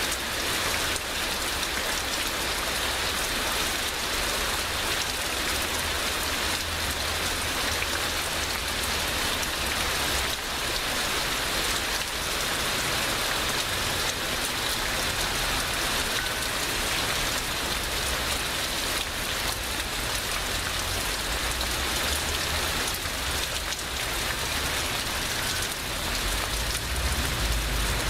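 Heavy rain pouring down steadily in a continuous hiss of drops, with a deep low rumble underneath that grows louder near the end.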